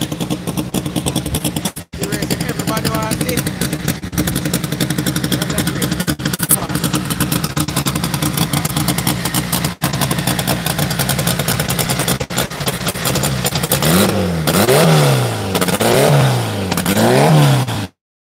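A drag race car's engine idling loudly with a fast, choppy pulse, then revved up and down several times in quick succession near the end. The sound cuts out suddenly just before the end.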